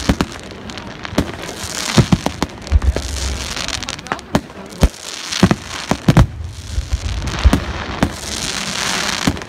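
Aerial fireworks display: a rapid, irregular series of sharp bangs from shells bursting, with stretches of steady hiss between them.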